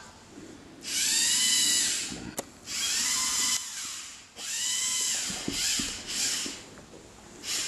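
LEGO Mindstorms TRACK3R robot's electric motors driving its tracks in short bursts under remote control. Each burst is a whine that rises and then falls in pitch, about four in all, with a sharp click between the first two.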